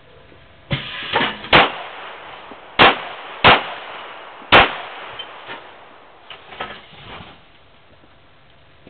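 Handgun shots fired in a quick, uneven string, about five over some four seconds, each with a brief echo, followed by a few fainter knocks and clicks.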